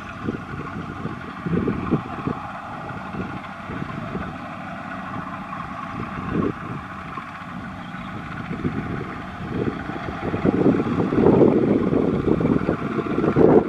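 Two-wheel walking tractor's single-cylinder diesel engine running as it strains to pull a trailer loaded with rice sacks through deep mud, growing louder about ten seconds in.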